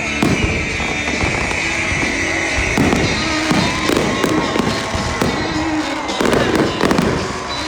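Fireworks show going off in repeated bursts with crackling, over music playing on the stadium loudspeakers.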